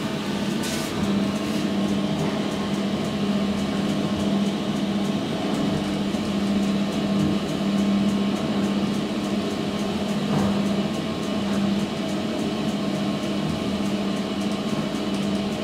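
2012 SMW traction elevator car travelling in its shaft: a steady hum with one strong low droning tone.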